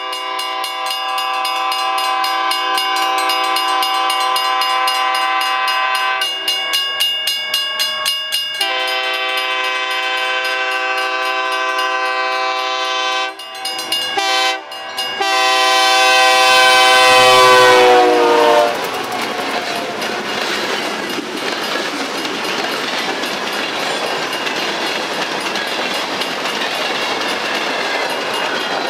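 EMD GP35 diesel locomotive blowing its air horn in the grade-crossing pattern of long, long, short, long as it approaches at speed. Its several notes sound together, and the last long blast falls in pitch as the locomotive goes by. Freight hopper cars then roll past, their wheels clicking steadily over the joints of jointed rail.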